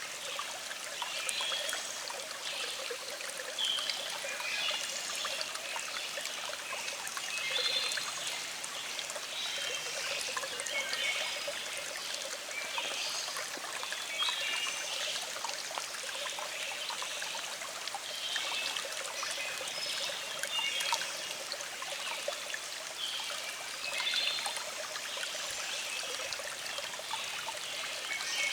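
Small stream flowing steadily, with constant water noise.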